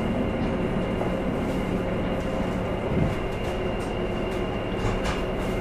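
Cabin of a JR KiHa 11 diesel railcar standing at a platform: the diesel engine idles with a steady hum, and there is one thump about three seconds in.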